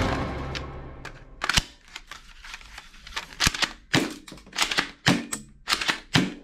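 Background music fades out, followed by a string of sharp, irregular plastic clicks and clacks from a plastic toy sniper rifle being handled and worked.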